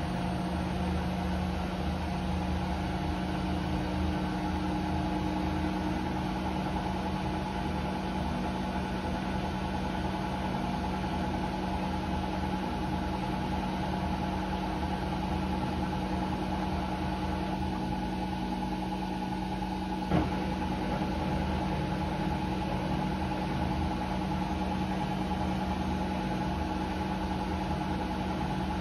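Hotpoint Ariston AQ83D 29 washing machine in its spin cycle, the drum turning at a steady speed with a constant motor hum. A single sharp click is heard a little after two-thirds of the way through.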